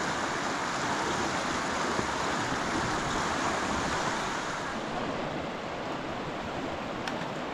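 Steady rushing of moving water, easing a little about five seconds in.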